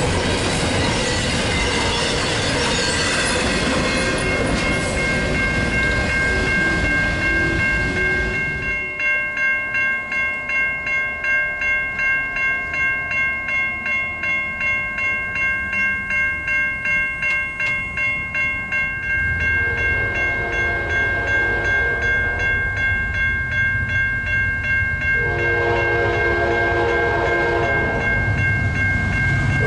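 Double-stack container cars rolling past with steady wheel and rail noise. Then, after a cut, a grade-crossing warning bell rings in even pulses, about two a second. From about twenty seconds in, the horn of an approaching freight locomotive sounds twice, the second blast louder and longer.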